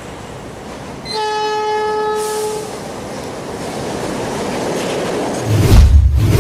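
Train horn sounding one steady note for about a second and a half, starting about a second in, over the rushing noise of a passing train. The noise grows louder, with a heavy low rumble near the end.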